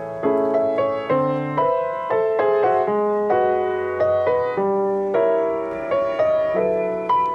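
Background music: a gentle solo piano piece, notes struck about twice a second over soft chords.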